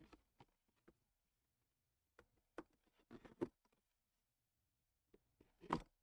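Faint handling noises from a sealed cardboard collectibles box being opened: scattered light clicks and taps, a short cluster of them about three seconds in, and a louder knock near the end.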